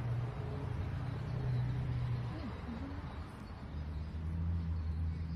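Steady low hum of a running vehicle engine, with a faint voice briefly about half a second in and again about two and a half seconds in.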